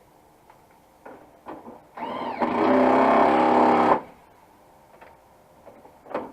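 Small electric motor whirring for about two seconds with a steady pitched whine, after a couple of light clicks.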